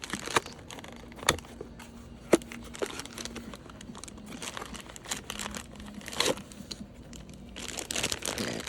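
Packaging crinkling and tearing as a doll-size lamp is unwrapped, with a few sharp clicks and a denser burst of rustling near the end.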